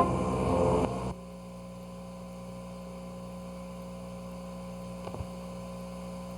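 Organ-like keyboard music stops about a second in, leaving a steady electrical mains hum with a faint click about five seconds in.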